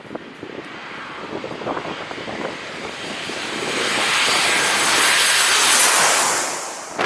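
Airliner engines swelling steadily as the plane passes low overhead, loudest about five to six seconds in, then falling off quickly.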